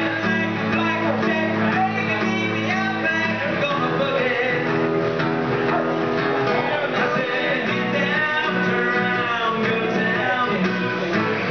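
A man singing while strumming a steel-string acoustic guitar.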